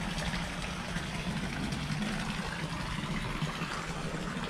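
Steady low hum under a constant hiss, unchanging throughout.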